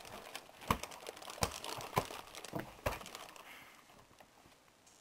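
Scuffle noise: rustling clothes with a run of irregular knocks and clicks, thinning out after about three seconds.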